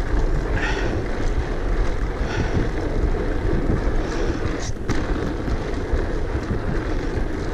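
Wind rushing over a GoPro action camera's microphone while mountain biking, a steady low rumble.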